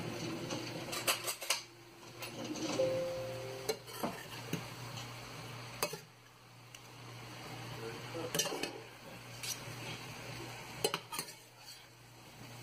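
Spatula stirring and tossing glass noodles, minced pork and vegetables in a stainless steel frying pan, with a soft sizzle. Scattered sharp clicks come where the utensil knocks and scrapes against the pan.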